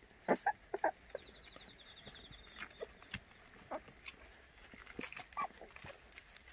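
Newborn puppies squeaking faintly while they nurse: a quick run of short high squeaks in the first second, then a few softer, scattered squeaks and snuffles.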